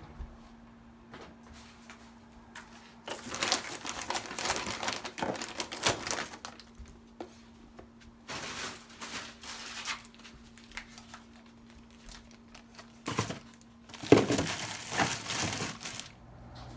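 Crinkling and rustling of something being handled, in three bursts, over a faint steady hum.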